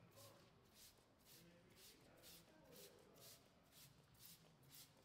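Hand-held trigger spray bottle being pumped over and over, about three quick hissing squirts a second, misting a detailing product onto a car's paintwork. The squirts are faint.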